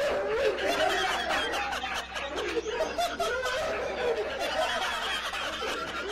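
A man laughing hard, steadily through the whole stretch.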